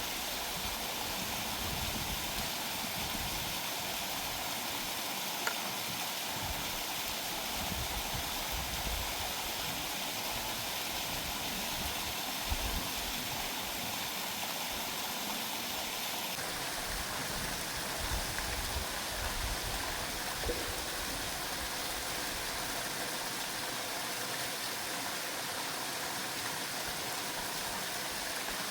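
Steady rushing of a waterfall and stream, an even wash of water noise, with a few faint clicks.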